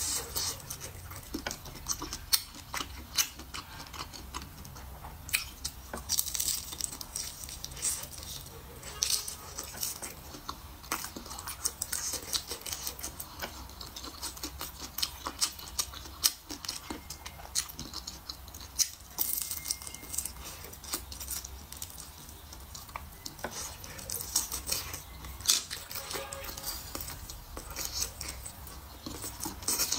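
Close-up chewing of a pan-fried pork sausage: irregular wet mouth clicks and smacks throughout.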